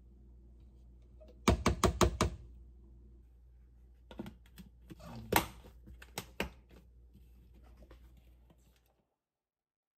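Plastic clicks and knocks from handling a Greek-yogurt strainer container. A quick run of about five sharp taps comes a second and a half in. A few seconds later the lid is set on and its latches click shut.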